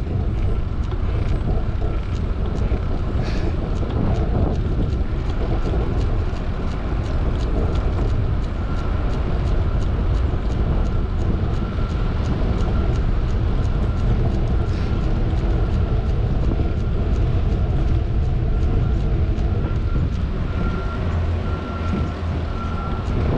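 Wind buffeting an action camera's microphone with tyre rumble on asphalt during a fixed-gear bicycle ride, steady throughout, with a faint thin whine that comes and goes and scattered light clicks.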